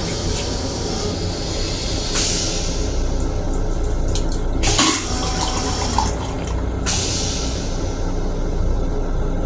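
Metro-North M7 railcar toilet flushing: rinse water rushes into the stainless-steel bowl in two spells with a short sharp whoosh between them, over the steady low rumble of the railcar.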